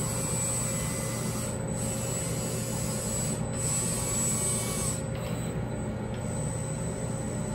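Fanuc CRX collaborative welding robot arm running a dry run: a steady whir of its joint motors with a thin high whine. The whine cuts out briefly about one and a half, three and a half and five seconds in, where the arm stops at each programmed point on fine-termination moves.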